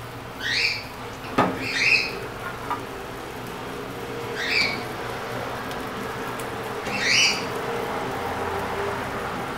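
Short rising bird calls repeat every two to three seconds over a steady sizzle of an egg pancake frying in oil in a pan. There is one light knock a little over a second in.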